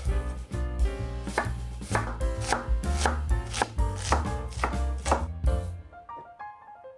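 Kitchen knife chopping an onion on a wooden cutting board, blade striking the board about twice a second, over background music. The chopping stops about five and a half seconds in.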